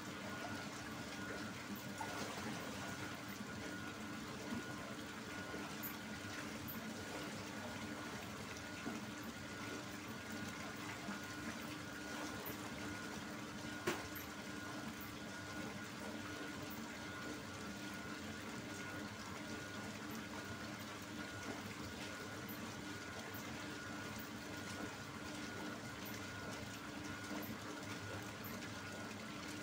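Soy milk pouring steadily from a cloth filter bag into a foamy tub, over the steady hum of the automatic tofu strainer's electric drive motor. A single sharp click about halfway through.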